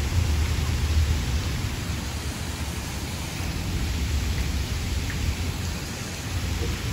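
Water pouring down a wall fountain, falling water making a steady rush with a heavy low rumble underneath.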